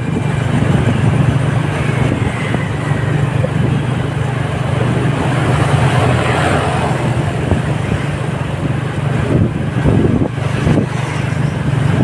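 Road traffic heard from a moving vehicle: a steady low engine hum with road noise, and motorbikes passing. A few brief thumps come about ten seconds in.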